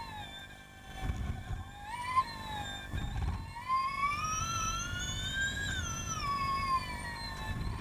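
Formula E car's electric drivetrain heard onboard, a high whine that falls and climbs with speed: it dips sharply about two seconds in, climbs steadily for several seconds, then falls off again near the end as the car slows. A rough low rumble from the road and a few bumps run underneath.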